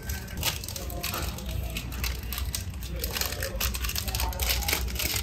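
Plastic food packaging crinkling and rustling as it is handled, in a run of irregular rustles.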